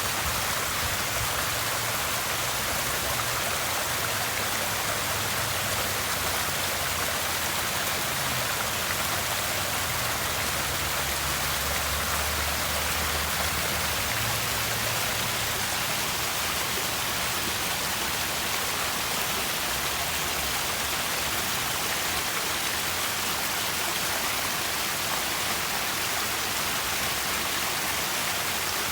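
Steady, unbroken rush of splashing water from a garden water feature.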